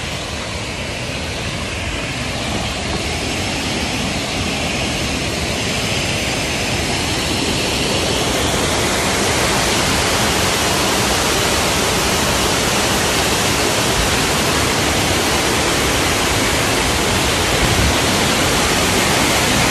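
Waterfall: a steady rush of falling water that grows gradually louder over the first half, then holds level.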